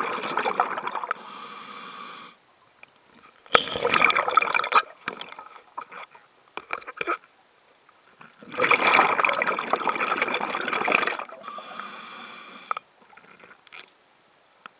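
Scuba diver breathing through a regulator, heard from the mask: loud bubbling bursts of exhaled air, one already under way at the start and others about 4 and 9 seconds in. After the first and the last comes a quieter hiss of inhaling through the regulator.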